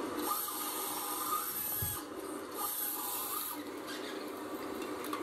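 Rustling and rubbing of a fabric cat tunnel as a puppy pushes and scrabbles inside it, in two spells of a second or more each, with a dull thump just before the break.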